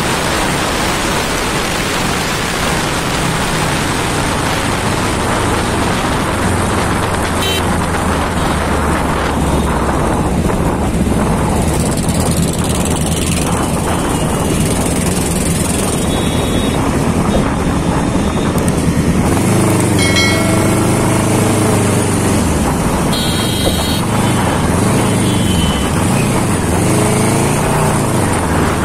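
Riding a two-wheeler through city traffic: steady wind and road roar on the microphone over an engine drone that rises and falls. Other vehicles' horns toot briefly a couple of times about two-thirds of the way through.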